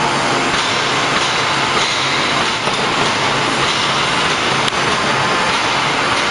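Steady, loud machinery noise of a hydraulic open die forging press at work, a dense even rush with a faint low hum underneath and one sharp click about three-quarters of the way through.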